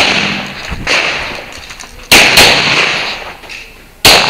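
Pistol shots fired singly and in a quick pair, each a sharp crack with a ringing echo tail: one at the start, a fainter one just under a second in, two a quarter second apart about two seconds in, and another near the end.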